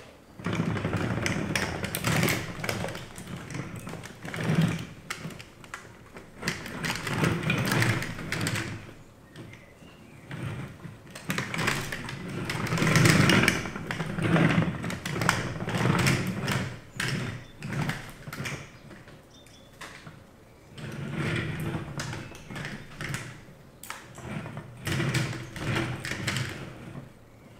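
3D-printed mecanum wheels on a steel-framed base rolling across a wooden parquet floor: a rumbling clatter of the plastic rollers with scattered clicks and knocks, rising and falling in surges as the base moves back and forth.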